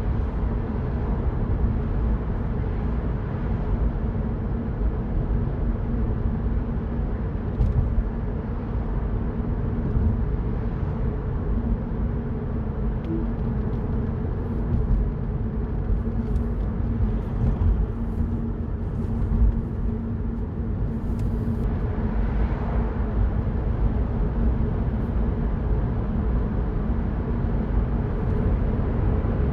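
Mini Cooper Cabrio driving at a steady cruise, heard from the cabin: a low, even rumble of engine and road noise with a steady engine hum.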